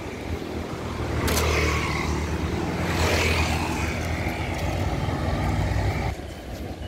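Road traffic: a motor vehicle passing close by on the adjacent road, its engine hum and tyre noise swelling to a peak about three seconds in and dropping off abruptly about six seconds in.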